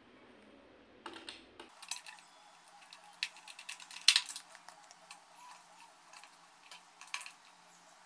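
Irregular light clicks and rattles of wires and a screwdriver being handled on plastic relay sockets and a contactor, with the sharpest click about four seconds in.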